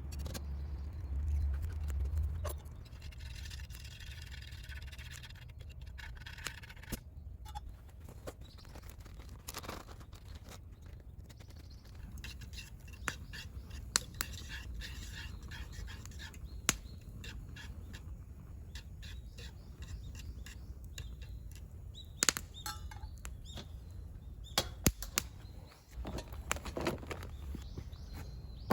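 Outdoor ambience: a low rumble of wind on the microphone, scattered sharp clicks and knocks, and faint bird chirps now and then.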